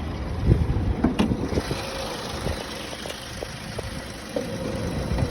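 Hyundai i30 1.6 CRDi diesel engine idling with the bonnet open, with a couple of short knocks in the first second or so. A faint steady tone comes in about two seconds in; this car's high-pitched tone was traced to a faulty fuel filter housing.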